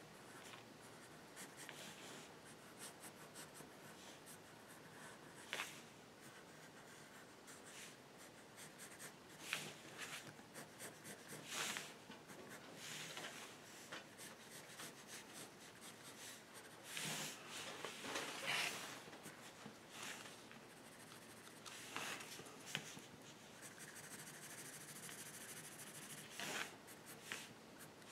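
Pencil scratching on drawing paper in short, irregular strokes, faint.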